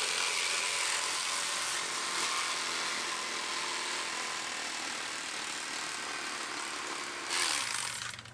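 Corded electric fillet knife running steadily as its blades saw along a walleye to take off a fillet. Its buzz grows briefly louder near the end, then cuts off.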